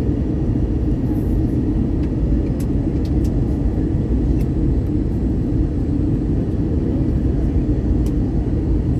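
Steady low rumble of engines and rushing air inside an airliner cabin during its descent to land, with a few faint ticks.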